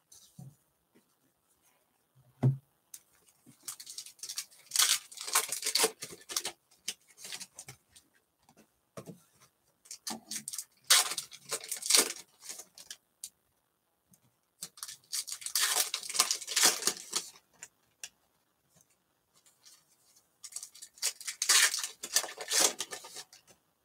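Foil wrappers of trading-card packs crinkling and tearing as packs are ripped open and the cards pulled out, in four bursts of rustling a few seconds apart. A single thump about two seconds in.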